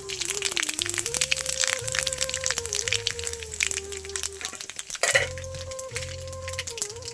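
Panch phutana, cumin and dried chilli crackling and sizzling in hot oil in a kadai as a tempering for dal, with a louder hiss about five seconds in. Background music plays throughout.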